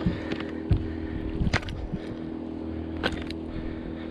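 Handling noises as a freshly landed bass and a frog lure are held and unhooked: scattered sharp clicks and knocks over a steady low hum.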